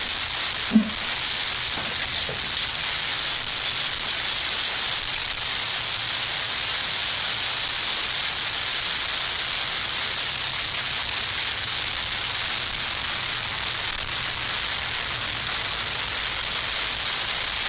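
Alcohol-burning penny stoves burning with a steady hiss, with one sharp click about a second in.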